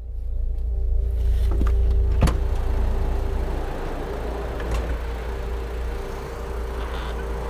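Car heard from inside the cabin with the engine running: a steady low rumble and hum, with a few sharp clicks, the loudest a little over two seconds in.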